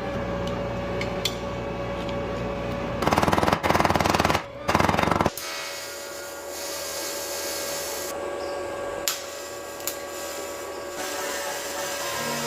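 Two short bursts of rapid mechanical rattling, a dense run of fast pulses, starting about three seconds in and again about a second later, over a steady background hum.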